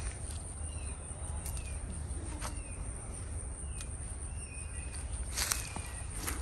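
Outdoor garden ambience: a steady low rumble, faint short bird chirps every second or so, and a few light clicks and rustles.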